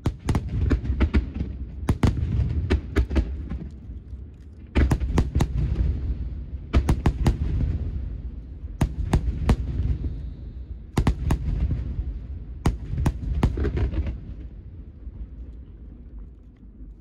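Aerial fireworks bursting in rapid volleys: many sharp cracks over a deep, echoing rumble, in three waves, dying away near the end.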